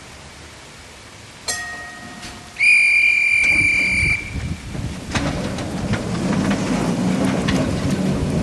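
Signals at a vintage tram stop: a single bell ding about a second and a half in, then a shrill, steady whistle held for about a second and a half, typical of the conductor's departure signal. A low rumble with scattered knocks follows and grows to the end, over a steady hiss.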